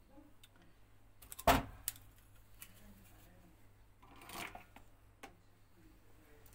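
Handling and tool noises while working on range-hood wiring: one sharp knock about a second and a half in, a few lighter clicks, and a brief rustle a little after four seconds, over a faint steady hum.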